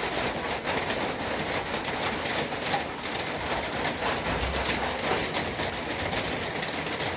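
Sandpaper rubbed by hand back and forth over a diamond-plate metal truck toolbox, a steady scratching rhythm of about three strokes a second that eases off after about five seconds.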